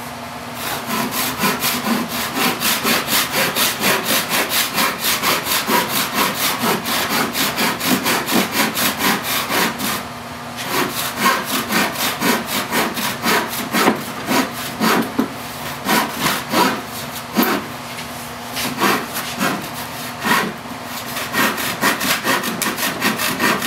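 Hand saw crosscutting a birch board in quick, steady back-and-forth strokes, with a short pause about ten seconds in and another near twenty seconds.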